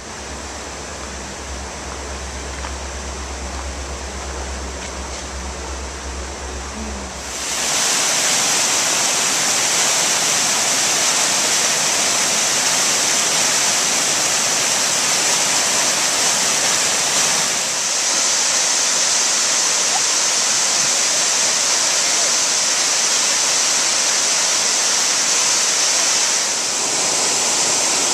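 A waterfall cascading over rock, a loud, steady rush of falling water that takes over about seven seconds in. Before it comes a quieter stretch with a steady low rumble.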